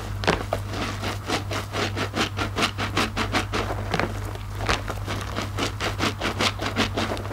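Wet squelching of two soapy IKEA bath loofahs being squeezed and kneaded by hand in sudsy water, a quick run of squishes about three to four a second. A low steady hum runs underneath.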